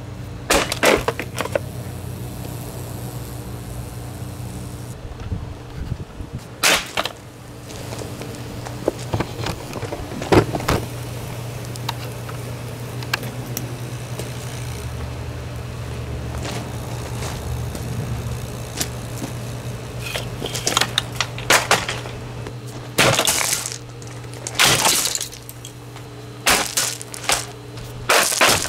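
A Holmes fan heater being smashed apart: a series of sharp impacts with cracking and breaking, a few spread out at first and then coming thick and fast near the end. A steady low hum runs underneath.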